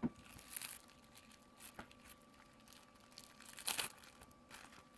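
Clear plastic packaging bag crinkling faintly in a few short rustles as a phone case is slid out of it, the loudest a little before four seconds in.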